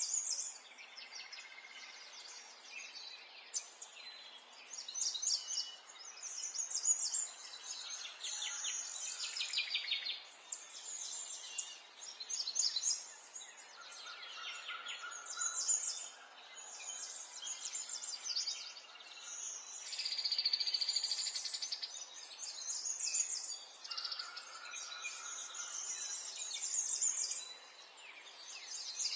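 Several songbirds singing at once: a continuous mix of high chirps, twitters and trills, with a few held whistled notes, over a light background hiss.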